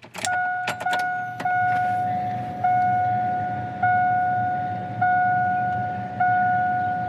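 A few sharp clicks of the key turning in the ignition, then the 2000 Chevrolet Silverado's dashboard warning chime: a clear single-pitch ding that repeats about every second and a bit, each one fading before the next.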